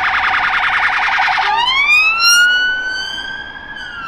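Electronic police siren: a rapid pulsing yelp that switches, about a second and a half in, to a wail rising in pitch, holding, then starting to fall near the end.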